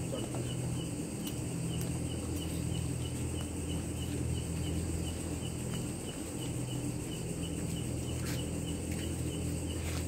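Crickets and other night insects chirping steadily over a low steady hum, with a few sharp crackles from the wood fire.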